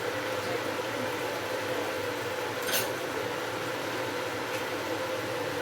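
Steady kitchen hum and hiss with a faint steady tone, and a single light clink of kitchenware nearly three seconds in.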